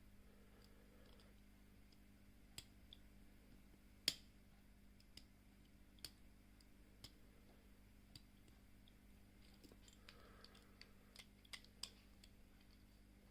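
Faint, scattered metal clicks and ticks from homemade lever-lock picks working the levers inside a British 6-lever oval padlock, with one sharper click about four seconds in.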